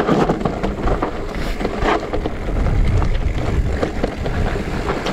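Wind buffeting the microphone while an electric mountain bike rolls down a rough dirt trail, with scattered knocks and rattles from the bike over the bumps.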